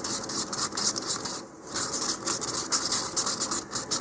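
Wood filler thinned with liquid being stirred and scraped around the inside of a small cup, mixing it into a thin sanding sealer. The scraping comes in quick, repeated strokes, with a short break about a second and a half in.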